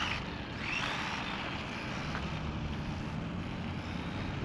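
Small RC truck with a Hobbywing 2435 4500KV brushless motor pulling away over asphalt on a 2S battery: a motor whine that rises and falls about a second in, then a steady rush of drivetrain and tyre noise.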